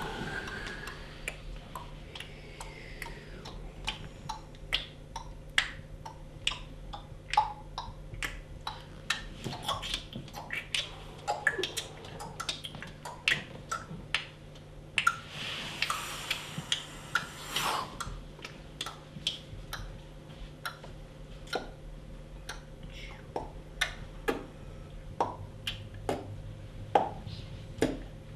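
Sharp clicks and snaps made by the performers as body percussion, coming irregularly, several a second at times. A little past the middle a breathy rushing hiss lasts about two seconds.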